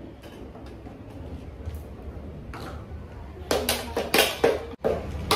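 A low steady hum, then about three and a half seconds in a quick run of five or six sharp knocks or taps.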